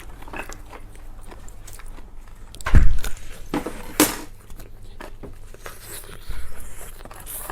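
A person biting and chewing food close to the microphone, with small clicks of food and utensil handling and one loud low thump a little under three seconds in.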